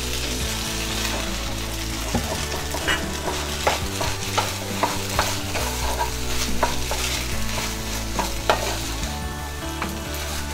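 Maggi noodles and scrambled egg sizzling in hot oil in a frying pan while being stirred and tossed with a spatula, with irregular scrapes and taps of the spatula against the pan.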